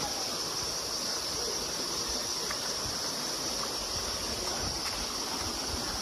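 Steady rush of a forest stream flowing over rocks, with a constant high-pitched insect buzz above it.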